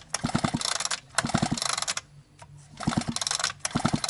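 Echo CS-670 two-stroke chainsaw's recoil starter pulled four times in quick succession, each pull a short rapid ratcheting rattle as the engine spins over. The engine does not fire: it is being cranked with the spark plug out to check for spark.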